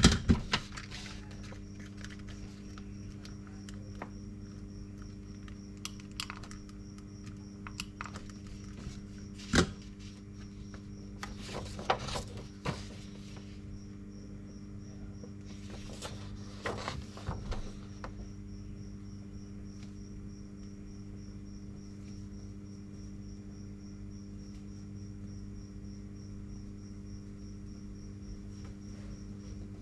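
A steady electrical mains hum with a faint, high, pulsing cricket trill over it, broken by a few short clicks and paper rustles, the sharpest click about ten seconds in.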